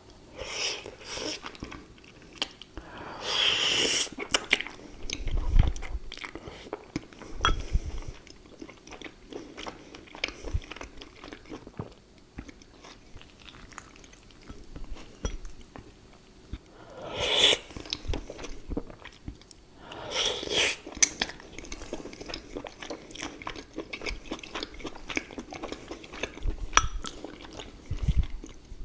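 Close-miked chewing and biting of rice paper noodles, vegan sausages and green beans: a dense run of wet mouth clicks and crunches. A few longer, louder noisy sounds come once near the start and twice past the middle.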